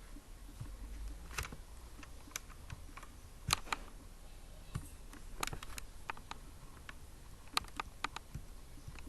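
Scattered sharp clicks from operating a computer, irregularly spaced and some in quick pairs, over a low steady hum.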